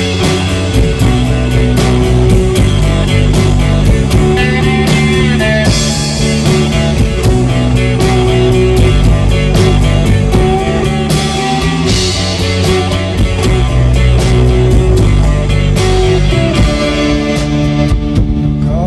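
A live rock band playing: electric guitars and bass over a drum kit keeping a steady beat, loud, with cymbal crashes about six and twelve seconds in.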